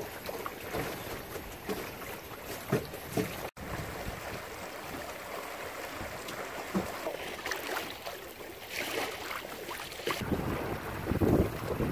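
Water rushing and splashing along the hull of a small O'Day Daysailer sailboat under way, with wind buffeting the microphone, louder and lower near the end.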